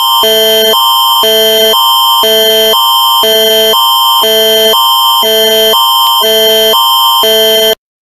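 Canadian Alert Ready emergency attention signal: a loud, harsh multi-tone alarm that switches between a higher and a lower chord every half second, over a constant high tone, and cuts off suddenly near the end.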